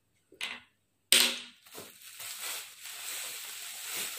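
Plastic bubble-wrap packaging being handled and crumpled: a sudden loud rustle about a second in, then continuous crinkling and crackling.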